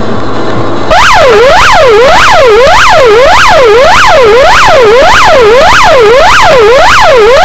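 Police patrol car siren switched on about a second in: a loud, fast wail sweeping down and back up just under twice a second, heard from inside the pursuing car, signalling a fleeing motorcyclist to stop.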